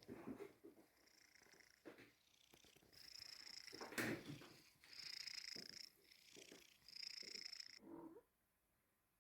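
Tomcat purring in rhythmic stretches about two seconds apart, a sound the owner wonders might be snoring. A sharp click about four seconds in; the purring stops about eight seconds in.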